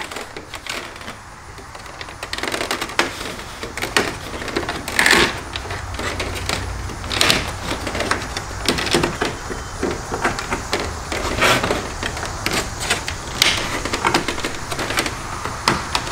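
Plastic kidney grille of a BMW F30 being worked out of the front bumper by hand, its retaining tabs snapping and clicking irregularly as they are pressed and released.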